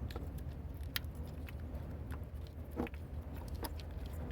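Scattered light clicks and taps of hand tools and parts being handled in an engine bay, over a steady low hum.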